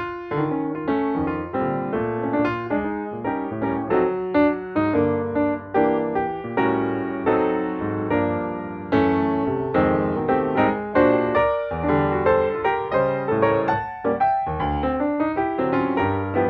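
Background piano music: a steady run of struck notes with chords beneath.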